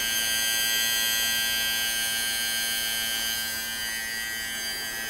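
Small electric coolant pump of a water-cooled 3D-printer hotend running with a steady electric buzz and hum. A high whine in it shifts lower about three-quarters of the way through.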